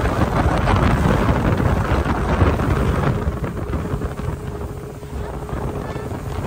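Wind buffeting the microphone over the steady hum of a speedboat's outboard motor and rushing water as the boat runs at speed; the buffeting eases somewhat about halfway through.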